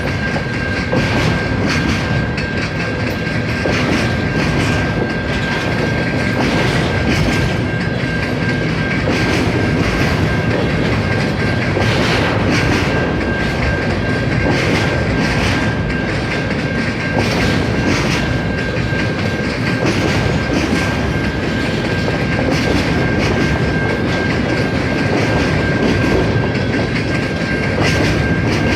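CN freight train rolling past, the wheels of its cars clicking over the rail joints in a steady clickety-clack over a low rumble, with a steady high-pitched squeal.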